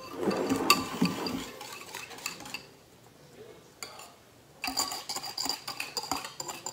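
A spoon stirring wet batter in a stoneware bowl, clattering against its sides for about a second and a half. After a quiet stretch while the batter is poured out, the spoon scrapes and taps quickly against the bowl from a little before the five-second mark.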